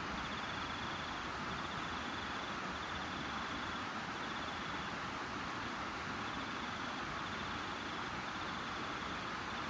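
Steady night-time outdoor background hiss. A faint, high, rapidly pulsed trill repeats in spells about a second long with short gaps.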